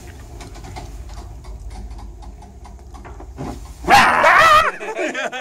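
A man gives a short, loud, warbling dog-like howl, under a second long, about four seconds in. Underneath, the lift car keeps up a low steady hum.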